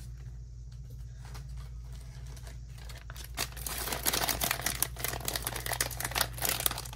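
Foil blind bag crinkling and tearing as hands squeeze and pull it open, starting about three seconds in after a few light handling sounds.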